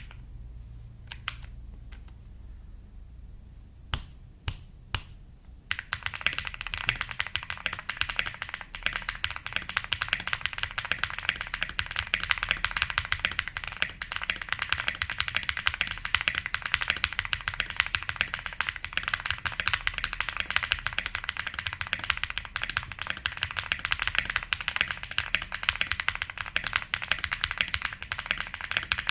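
Mechanical keyboard typed on: a few single keystrokes in the first several seconds, then fast, continuous typing from about six seconds in.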